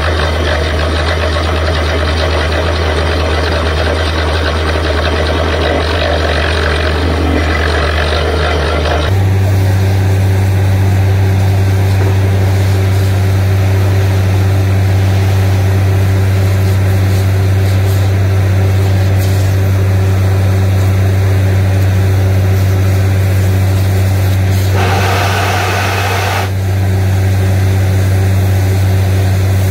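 Truck-mounted borewell drilling rig's engine running steadily, with a rushing hiss of air and cuttings blowing from the bore. The hiss drops away abruptly about nine seconds in, leaving the engine's drone, and comes back briefly as a short burst near the end.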